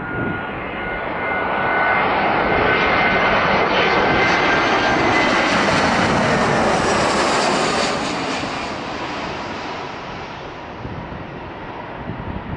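Airbus A319 airliner's twin turbofan engines passing low on landing approach: a steady jet roar with a high whine that slowly drops in pitch. It swells to its loudest in the middle and fades over the last few seconds as the plane moves away.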